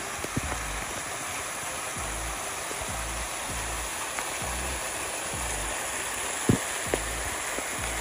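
Waterfall pouring down right over the microphone: a steady rush of falling water, with sharp splats of drops hitting close by, the loudest about six and a half seconds in. Soft music runs underneath.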